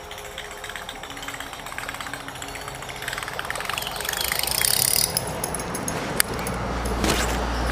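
Baitcasting reel being cranked to retrieve the lure, its gears whirring in fine rapid ticks. A rushing noise swells about four seconds in, and a low rumble comes in near the end.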